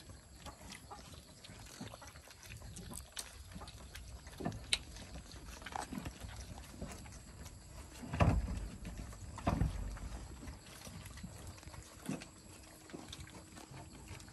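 Puppies suckling at their mother and eating from a bowl: scattered small wet smacking and lapping clicks, with two louder thumps about 8 and 9½ seconds in.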